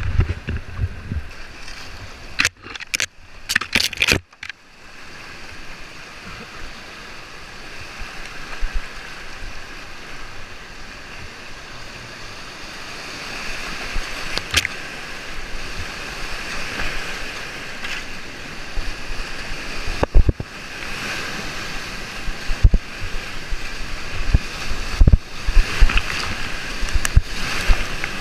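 Whitewater rushing and churning around a kayak running a rapid, heard close up from a camera on the boat or paddler, the rush growing louder partway through as the boat drops into the rapid. A quick cluster of sharp knocks comes a few seconds in, with single sharp splashes or knocks against the hull and camera scattered through the rest.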